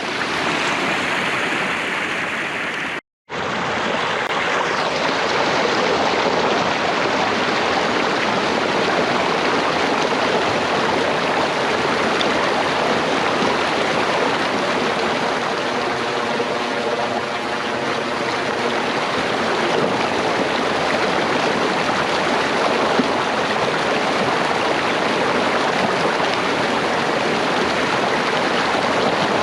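Rain-swollen creek rushing and splashing steadily, with a moment of silence about three seconds in.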